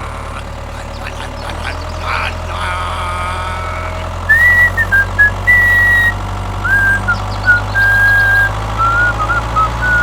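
Steady low machine hum, joined about four seconds in by a whistled tune of short stepping notes.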